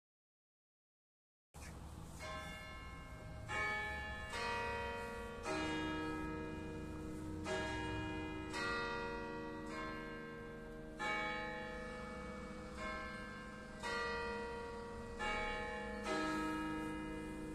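Church bells of the Speyer Gedächtniskirche striking the three-quarter hour: a slow melody of single strokes on bells of different pitches, each stroke ringing on under the next. The strokes begin about a second and a half in.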